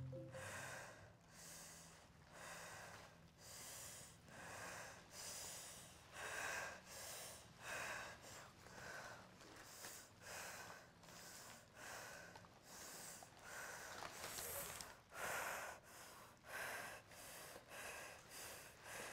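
Puppeteers audibly breathing in and out together as the vocalised breath of a fabric puppet: quick, faint, rhythmic breaths and gasps, about one every half second to second, with a few louder ones about fifteen seconds in. The quick breathing conveys the puppet's nervousness before a dive.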